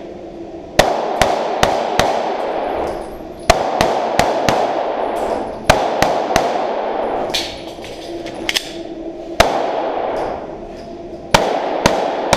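A pistol fired in quick strings of two to four shots with short pauses between, about fifteen shots in all, as a shooter runs an IDPA course of fire. Each shot is followed by an echoing tail.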